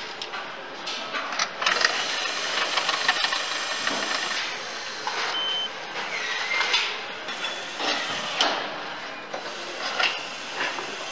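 Car assembly-line noise: a steady machine hum with frequent clicks and clanks from cordless power tools and parts being fitted, and a short electronic beep about five seconds in.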